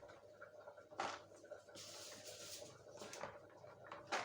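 Faint kitchen handling sounds of food containers going into a freezer: a light knock about a second in, a soft rustle around two seconds, and a sharper knock near the end.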